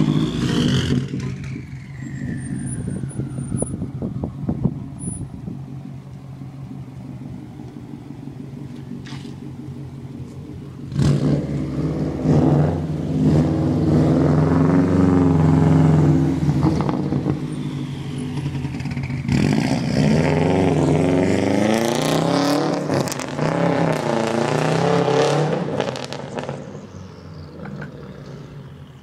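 Subaru Impreza WRX STI's turbocharged flat-four, with a catless downpipe and 3-inch straight pipe, driving off. It is quieter at first, then gets loud about a third of the way in, with the revs rising and falling several times, and fades near the end as the car goes away.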